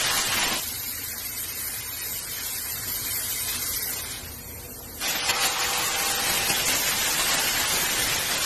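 Welding arc crackling and hissing steadily. It fades out about four seconds in and starts again abruptly a second later.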